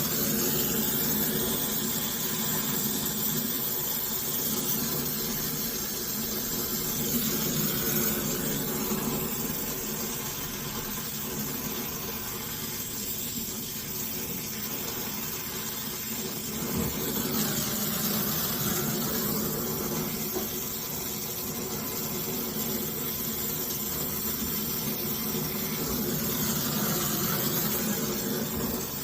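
Steady machine hum with hiss, its level slowly swelling and easing.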